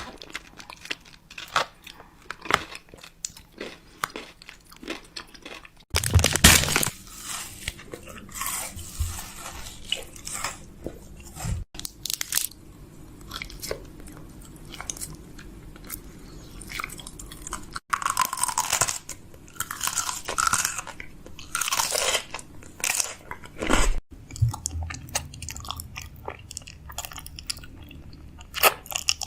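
Someone biting into and chewing crunchy snacks close to the microphone, with many short crisp crunches. The background changes abruptly every six seconds or so.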